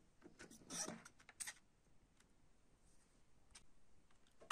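Plastic CD jewel case being handled and opened: quiet clicks and rubbing of the plastic in the first second and a half, then a small click. Near the end a sharp click as the disc is pressed off the case's centre hub.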